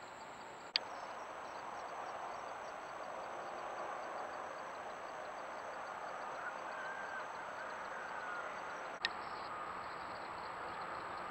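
Trail camera's own recording: a steady hiss with a faint high steady whine, broken twice by a sharp click where one recording ends and the next begins.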